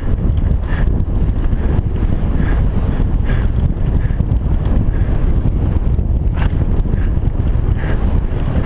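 Wind buffeting the camera microphone during a mountain bike ride, over a heavy low rumble of tyres and bike chatter on the dirt trail. Light ticks recur about every second.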